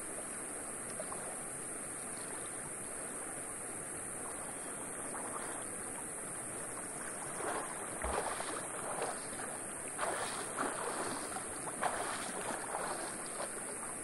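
Water splashing in irregular bursts from about halfway through, as a person moves and swims in a river, over a steady background rush.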